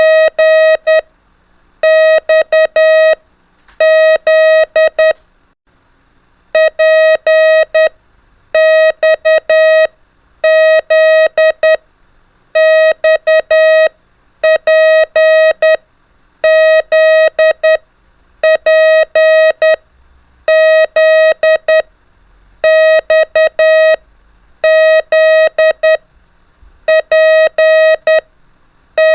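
Morse code (CW) practice tone sending the letters P, X and Z. A single steady beep is keyed on and off in dots and dashes, in groups with short gaps between them.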